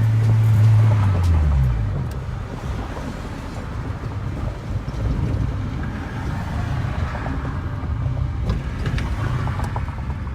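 Honda Del Sol engine running at steady revs, then dropping in pitch about a second in as the revs fall, followed by lower, uneven engine and road noise.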